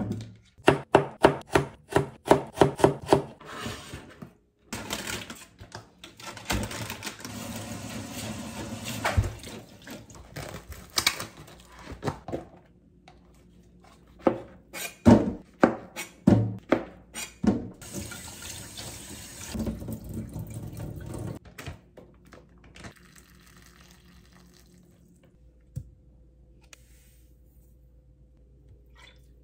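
Knife chopping a carrot on a cutting board, about four even strokes a second. Then a kitchen tap runs into the sink for several seconds, a few loud knocks follow, and the tap runs again.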